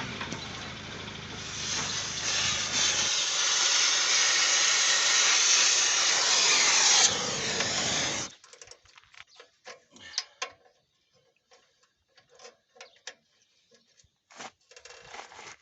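A power tool running on the potato planter's metal for about seven seconds, then cutting off. Under it, an engine idles until about three seconds in. Afterwards come scattered light clicks and taps.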